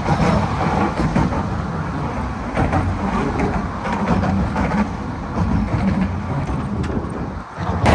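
Steady road traffic noise from vehicles passing close by, dipping briefly just before the end.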